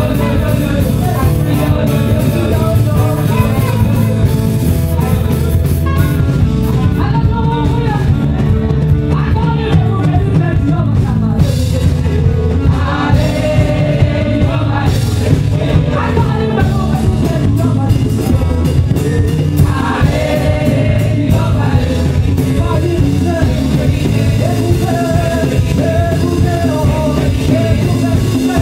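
Alto saxophone playing a gliding melodic lead over a live band with bass, keyboard and drums.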